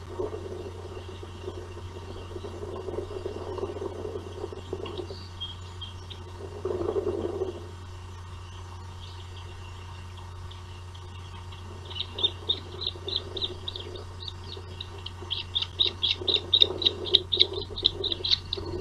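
Osprey calling in a rapid series of high chirps, several a second, starting about twelve seconds in and growing louder toward the end. Under it runs a steady low hum, and a low rushing noise swells briefly about seven seconds in.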